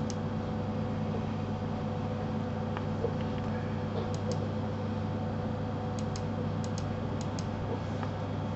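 Short sharp clicks of a computer mouse and keyboard, several coming in quick pairs, over a steady low hum.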